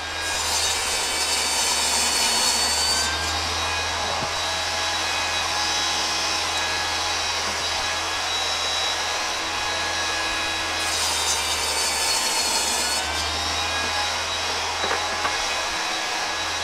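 Table saw spinning up and running with a steady whine, cutting plywood twice: once right after it starts and again about eleven seconds in, each cut lasting a couple of seconds, with the blade running free between.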